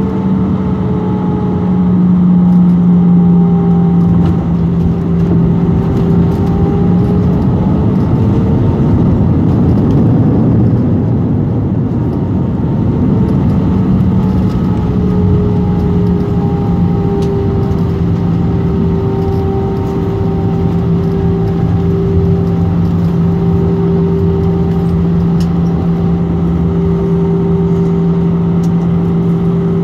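Airbus A319 cabin noise over the wing during the landing roll: a loud roar of engines and rushing air that swells about two seconds in and then holds steady, with several engine hums drifting slowly lower in pitch.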